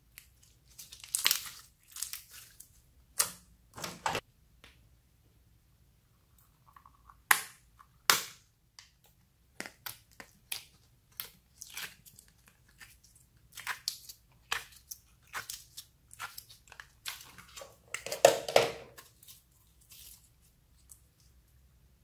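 Slime being squished and mixed by hand: irregular sticky clicks and crackling pops, with a longer crackly squish near the end.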